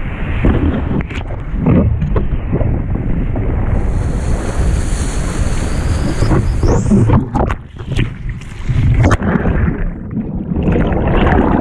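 Wind buffeting the microphone of an action camera over rushing surf as a stand-up paddleboard rides a wave, with sharp splashes and knocks a little past the middle. Near the end the camera goes underwater and the sound turns to muffled bubbling.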